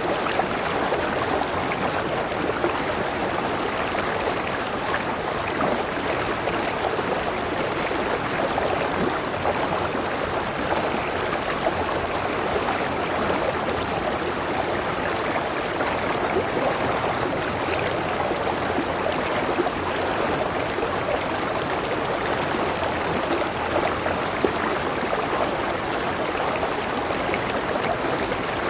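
A river or small waterfall running steadily over rocks, a continuous rushing with fine bubbling and trickling.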